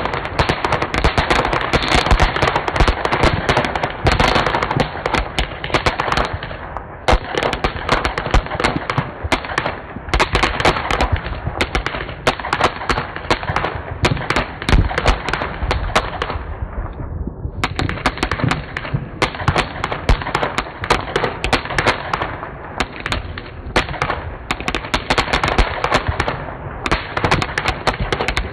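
Ground fountain firework spraying crackling sparks: a dense, rapid run of sharp pops that thins briefly a few times.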